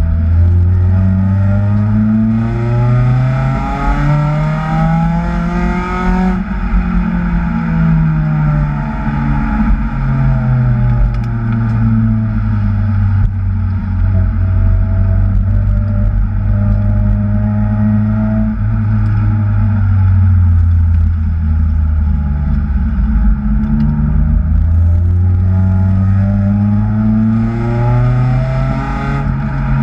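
Supercharged Acura TSX engine pulling under load. Its pitch rises for the first several seconds, drops off and falls slowly through the middle, then climbs again near the end.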